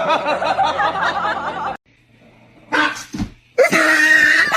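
A person laughing, cut off abruptly, then after a short gap a brief sound and a loud drawn-out cry lasting about a second.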